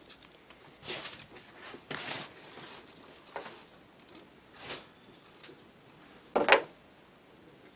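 Several short rustling and knocking noises, the loudest about six and a half seconds in.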